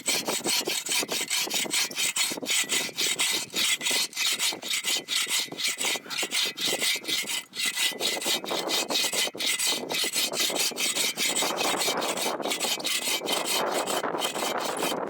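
Wood being cut with a hand saw in quick, even back-and-forth strokes that stop near the end.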